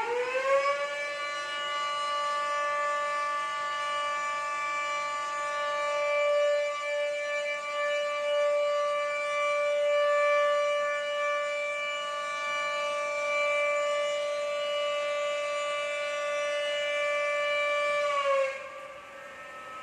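Dam warning siren sounding a long, steady wail: its pitch finishes rising in the first second, holds level, then drops and fades about 18 seconds in. It is an alert telling residents nearby to be careful.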